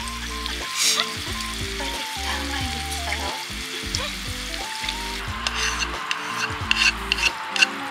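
A frying pan of fried tofu simmering in mentsuyu and water, sizzling steadily, with a few sharp clicks in the last few seconds. Background music plays over it.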